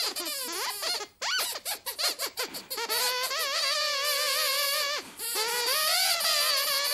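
High-pitched squeaker voices of the Sweep dog puppets chattering in squeaks. A quick run of short squeaks comes first, then longer wavering squeaks with a brief break about five seconds in.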